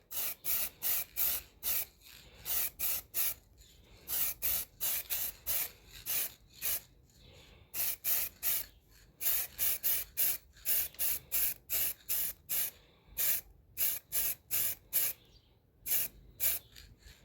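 Aerosol can of heat-resistant caliper spray paint hissing in many short bursts, about two or three a second, with brief pauses between runs, as a coat of paint goes on.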